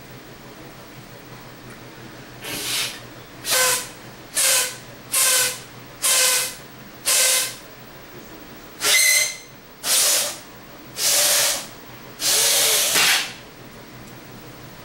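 A man blowing about ten hard, hissing breaths, roughly one a second, the last one longest, with air whistling faintly as he tries to inflate a condom stretched over his head.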